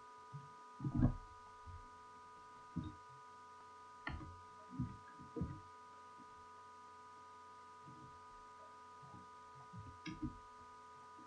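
Faint steady electrical hum with several soft clicks and low thumps scattered through it, the loudest about a second in.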